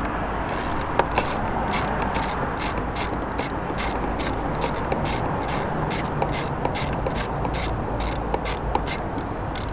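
Ratchet wrench clicking in a quick, even rhythm, about three to four clicks a second, as a bolt is turned.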